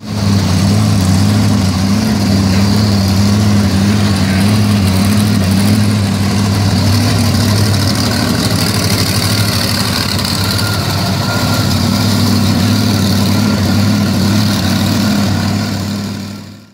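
Monster truck engine idling steadily, a low even drone that fades out near the end.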